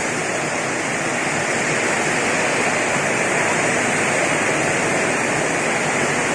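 Heavy rain pouring down in a steady, even downpour, with no thunder.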